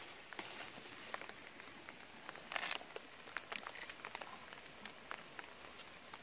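Light rain falling steadily, with scattered drops ticking close by. A brief louder rustle about two and a half seconds in.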